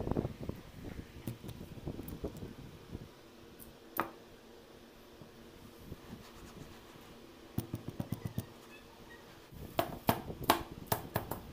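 Hands pressing a cloth onto a steel mesh sieve and handling its rim: soft rubbing and handling noise with scattered light clicks and taps, a single tap about four seconds in and quick runs of clicks near the end.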